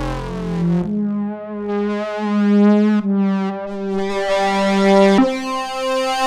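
Native Instruments FM8 software synthesizer playing a sustained pad with a random pitch wobble (vibrato). The chords change about every two seconds as the patch is morphed between its variations.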